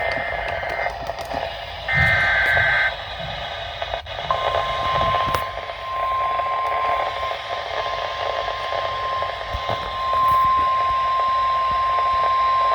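Weatheradio Canada broadcast heard through heavy static: the last two SAME digital alert-header bursts, each a harsh two-pitch warble about a second long and two seconds apart, then about four seconds in a steady single-pitch 1050 Hz warning alarm tone that holds, briefly dropping out with the poor reception. The header and tone signal an incoming weather warning.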